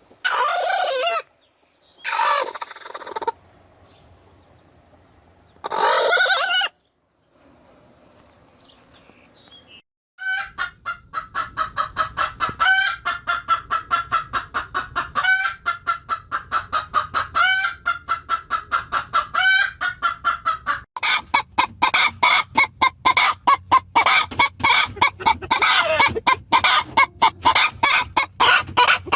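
Chickens calling: three loud calls of about a second each, then a fast, steady run of clucks that starts about ten seconds in, with a louder note every two seconds or so, growing denser after about twenty seconds.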